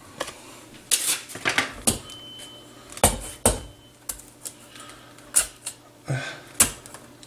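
Chef's knife cutting through a whole head of raw cauliflower on a wooden cutting board: a series of irregular sharp crunches and knocks as the blade cracks through the head and strikes the board.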